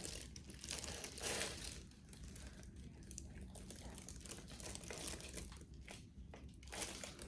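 Faint, irregular crinkling and rustling of exam-table paper as a baby shifts about on it during a check-up.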